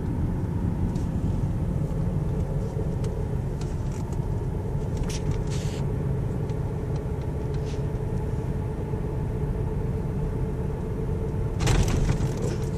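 Steady low road and engine rumble of a car, heard from inside the cabin while driving. A louder burst of noise comes near the end.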